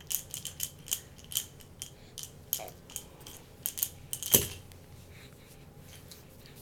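A quick, irregular series of light clicks and taps, the loudest just after four seconds in; they stop about four and a half seconds in.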